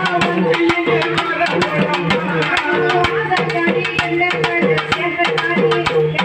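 A man singing a folk devotional song into a microphone, amplified, accompanied by a barrel drum beaten with a stick in a quick, steady rhythm.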